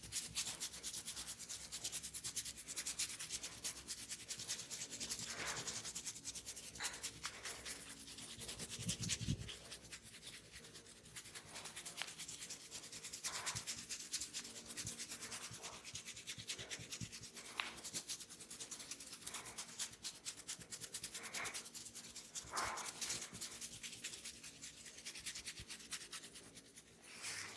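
Hands rubbing and scratching through hair and over the scalp in a head massage: a fast, continuous rustle of hair friction, with a few louder swishes now and then.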